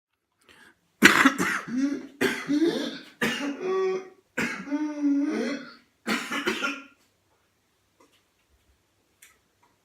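A person with whooping cough (pertussis) in a coughing fit: about five sudden bursts of coughing over some six seconds, with drawn-out pitched sounds between them, then it stops.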